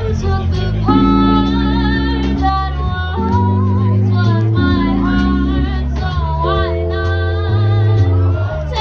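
Live band: a woman singing a melody with vibrato over Nord Stage keyboard chords and a walking bass line, with drums keeping time on the cymbals.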